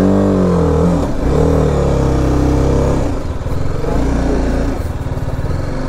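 BMW G 310 RR's single-cylinder engine, heard from the rider's seat, revving up and easing off twice in short pulls of the throttle, then running more steadily at lower revs.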